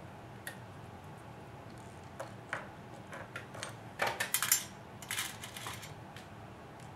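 Small metal kit parts and hardware clinking and clicking as they are handled, with a cluster of sharp clinks about four seconds in and another just after five.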